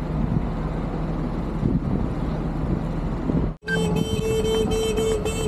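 Steady road traffic noise with a low engine hum. About three and a half seconds in it cuts off abruptly and a held, steady pitched tone takes over until the end.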